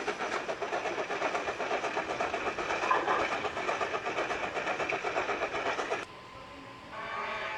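Train sound effect running with a fast, even clatter that cuts off suddenly about six seconds in. Near the end a cow begins to moo.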